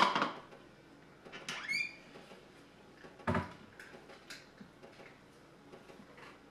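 Plastic cereal bowl set down on a kitchen counter with a sharp clack, then a brief rustling scrape with a rising pitch and a second, duller knock about three seconds in.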